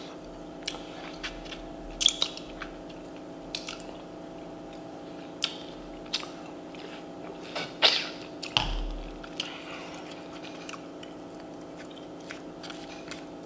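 Close-miked eating sounds from a burrito bowl: wet chewing and mouth smacks with scattered sharp clicks of a fork against the bowl, over a steady low hum. The loudest clicks come about two seconds in and near eight seconds, followed by a dull thump.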